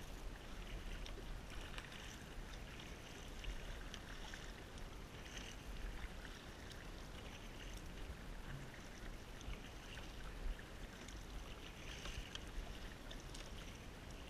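Faint swish and splash of a kayak paddle dipping into sea water, stroke after stroke every couple of seconds, over a steady wash of water.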